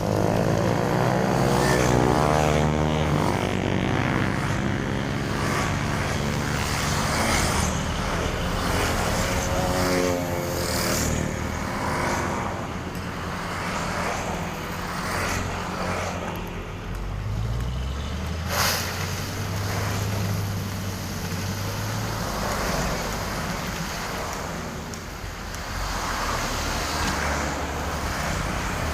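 Heavy diesel road-construction machinery running continuously, its engine note rising and falling in the first half, with one sharp knock about two-thirds of the way through.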